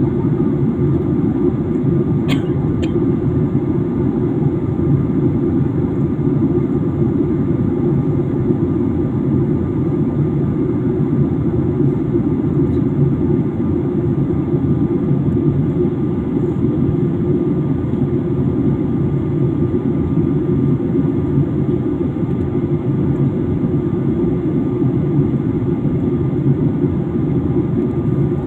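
Steady airliner cabin noise in flight: a low, even rush of engines and airflow, with a faint steady tone above it and two small clicks about two seconds in.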